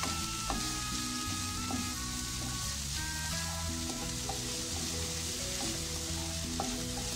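Chopped mushrooms, onion and green capsicum sizzling in oil in a nonstick pan while a spatula stirs them. A light background music tune plays along.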